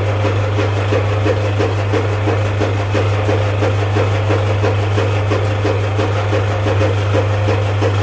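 Chaff cutter (fodder chopping machine) running steadily: a loud even hum with a fast, regular rhythmic beat.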